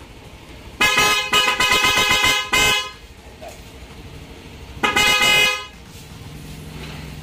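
Motorcycle electric horn sounded in short presses: about two seconds of honking with a couple of brief breaks, then one short honk about five seconds in. It is sounded to test whether the headlight flickers under the horn's load on the rewired lighting.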